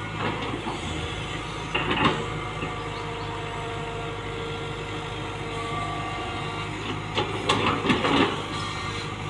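Tata Hitachi Zaxis 120 hydraulic excavator's diesel engine running steadily under load as it digs soil, with clanking knocks from the bucket about two seconds in and a cluster of them near the end.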